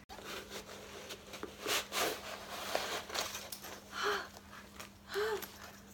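Crinkling and rustling of paper and plastic packaging as a magazine's free-gift bag is pulled out, then a woman's excited panting breaths, "haa", twice near the end.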